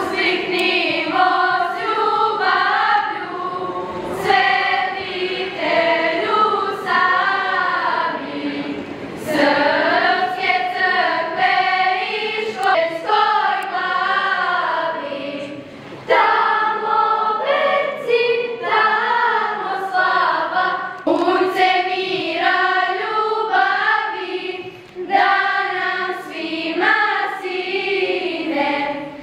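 A girls' choir singing, with short breaks between phrases about halfway through and again near the end.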